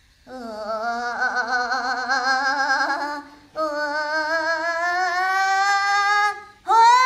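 A woman's voice imitating a cordless screwdriver: two long hummed buzzes, the first wavering in pitch, the second rising slowly as if the motor is speeding up, then a short rising note near the end.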